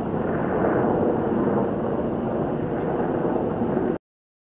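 AH-64 Apache attack helicopter in flight: a steady, loud rotor and turbine noise that swells slightly about half a second in, then cuts off suddenly near the end.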